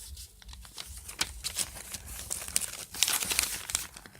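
A sheet of paper being handled and folded into a paper airplane: irregular crinkling and rustling with sharp little crackles as the creases are pressed, busiest about three seconds in.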